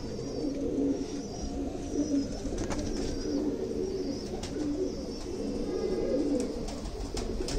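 Domestic pigeons cooing, low repeated coos with no break.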